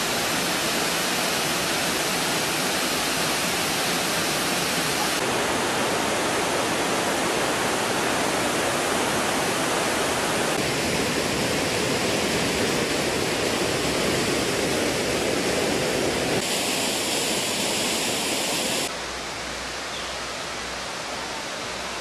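Steady rush of falling water from a waterfall, a dense even noise. It shifts abruptly in tone several times and turns quieter near the end.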